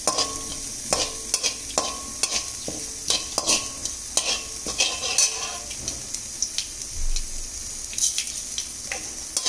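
Mustard and cumin seeds sizzling in hot sesame oil in a kadai, while a perforated steel spatula stirs them, scraping and tapping the metal pan about twice a second. Some taps ring briefly.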